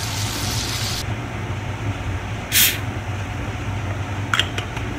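Canola oil cooking spray sprayed onto an open palm: a hiss that cuts off about a second in, then a second short spray about two and a half seconds in. A few light clicks follow near the end as the can is handled.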